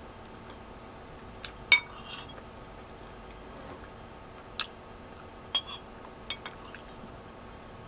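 A metal soup spoon clinking against a ceramic soup bowl while spooning up broth: several separate light clinks, the loudest about two seconds in with a brief ring.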